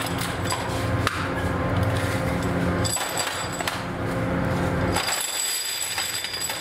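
Metal motorcycle brake shoes clattering and clinking against each other and a steel worktable as they are tipped out of a metal tub, with a steady low hum underneath that drops away about five seconds in.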